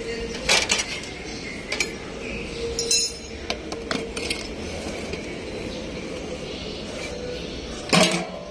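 Metal tools clinking and knocking against engine parts: a few sharp strikes about half a second in, a ringing clink about three seconds in, more light taps, and the loudest knock near the end, over a steady faint hum.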